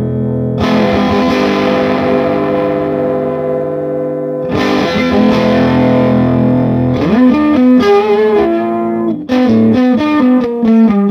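Telecaster electric guitar played through a stock Epiphone Valve Junior tube amp, volume at 12 o'clock, into a Celestion Alnico Blue speaker. Two ringing strummed chords are followed by a single-note line with slides from about seven seconds in. The player finds the tone muddy, as if a wet towel covered the speaker.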